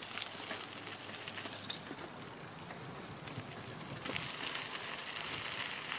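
Bicycle tyres rolling over a dirt trail: a steady crunching hiss with small clicks and rattles, a little louder from about four seconds in.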